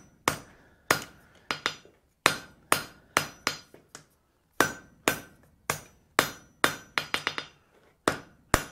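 Blacksmith's hand hammer striking a hot steel bar held in tongs on an anvil, forging down the stock to set its shoulders. Sharp blows about two a second, each ringing briefly, with a short pause about four seconds in and a quick run of lighter taps about seven seconds in.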